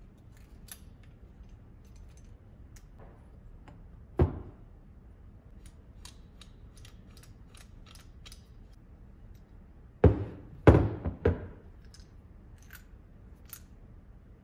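Rusty 1920 hand drill being taken apart by hand: light metal clicks as the handle and chuck are unscrewed. There is one sharp knock about four seconds in and a quick cluster of louder knocks near ten seconds in, as parts are knocked or set down on the bench.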